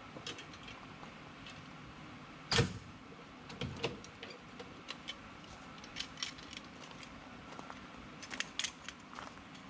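Keys jangling and scattered metallic clicks and knocks as the locks are unlocked and taken off Torklift FastGun tie-downs on a truck camper. The loudest knock comes a little over two seconds in, with more clusters of clicks later.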